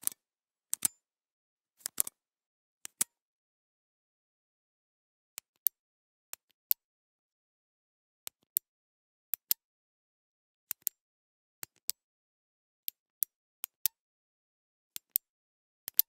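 Retractable pens being clicked over and over, each click a quick double snap of the button pressed and released, about one pair a second. After about two seconds' pause, some three seconds in, a second pen carries on clicking the same way.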